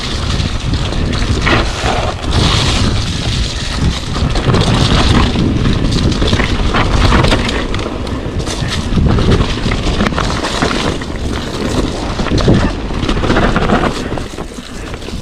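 Wind buffeting the microphone and mountain bike tyres rolling fast over a dirt trail, with frequent short clattering knocks from the bike over bumps.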